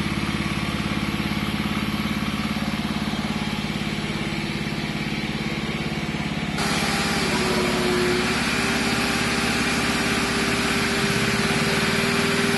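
Portable generator engine, converted to run on compressed hydrogen, running steadily. About six and a half seconds in a shop vacuum switches on, adding a loud rushing hiss and a steady whine over the engine.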